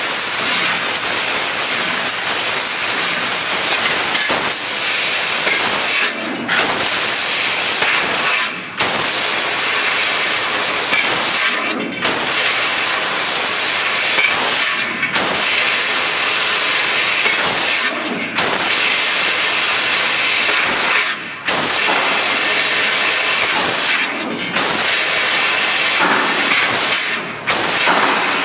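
Fiber laser tube cutter cutting 1 mm galvanized square steel tube: a steady, loud hiss of the cutting jet and spraying sparks. It drops out briefly about every three seconds.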